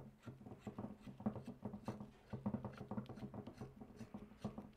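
Quick, faint scratching and clicking of a Teflon-taped 3/4-inch pipe nipple being screwed by hand onto the threaded outlet of a stainless submersible well pump.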